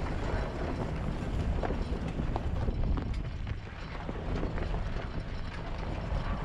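Ford Raptor pickup driving off-road: a steady low engine rumble, with scattered knocks and crunches from the tyres on rough ground.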